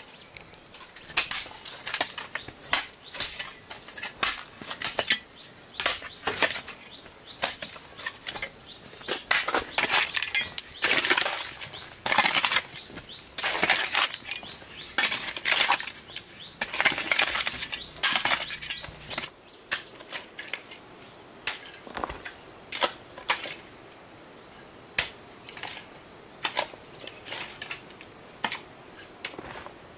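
Irregular sharp knocks and crunching crackle: a few at a time, then dense clattering runs through the middle, then scattered again. A faint steady high tone sits underneath.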